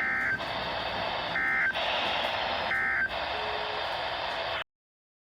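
Emergency Alert System end-of-message data bursts: three short, shrill digital chirps about a second and a half apart, marking the end of the flash flood warning. Under them is a steady radio hiss, and all sound cuts off suddenly near the end.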